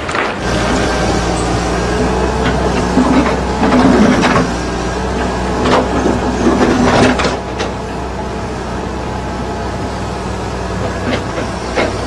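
Excavator at work: its engine running with a steady low drone, with irregular metallic clanks and knocks from the bucket digging, loudest about four seconds in and again around six to seven seconds in.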